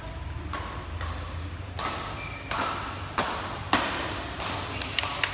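Badminton rally: rackets striking the shuttlecock with sharp hits, two of them about half a second apart roughly three seconds in, among the scuffs of players' shoes on the court, echoing in a large hall.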